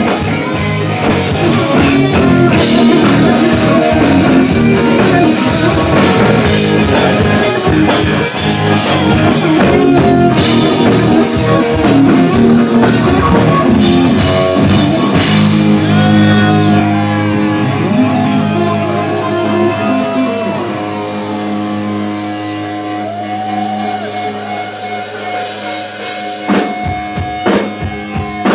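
Live rock band playing, with distorted electric guitars over a full drum kit. About halfway through, the drums drop out, leaving held guitar chords and notes sliding up and down. The drums come back in with sharp hits near the end.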